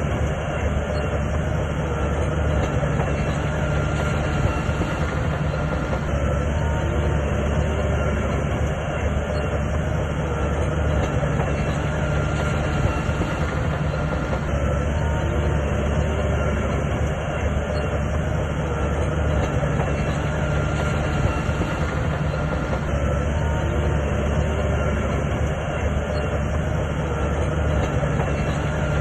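Shantui crawler bulldozer working: its diesel engine running steadily with the sound of its steel tracks.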